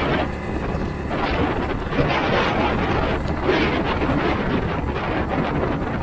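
Heavy wind buffeting the camera microphone on a moving motorcycle, surging in irregular gusts over the ride's road noise.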